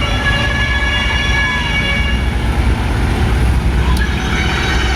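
Procession float vehicle running with a loud, steady low rumble. Sustained high, horn-like tones sound over it for the first few seconds, then fade.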